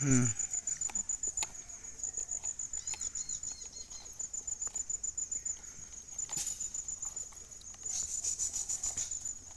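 Crickets chirping in a steady, rapid high-pitched pulse, with a couple of sharp clicks and a few short high chirps around three seconds in.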